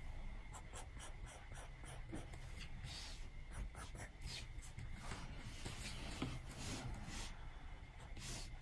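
Apple Pencil tip tapping and sliding on an iPad's glass screen: a quick, irregular run of light taps and short scratchy strokes.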